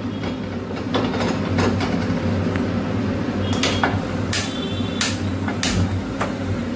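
Cast-iron kadai set down on a gas stove's grate with a few light knocks, then a hand-held spark gas lighter clicking about six times, a little more than once a second, to light the burner.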